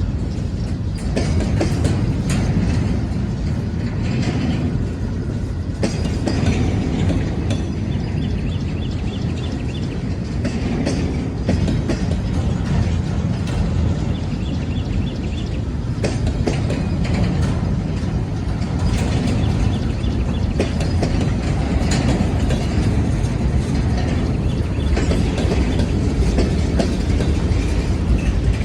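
Freight train rolling past: a steady low rumble, with the wheels clicking over rail joints.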